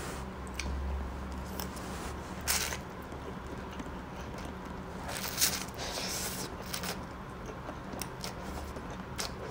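Close-miked slurping and chewing of sauced instant noodles eaten with chopsticks: a handful of short, hissing slurps, the loudest about halfway through.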